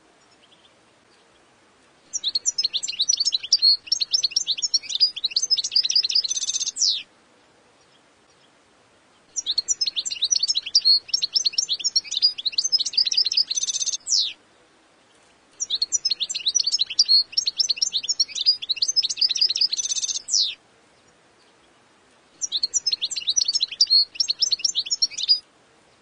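European goldfinch singing: four bursts of rapid, high twittering, each about three to five seconds long and most ending in a short buzzy trill, with pauses of one to two seconds between them.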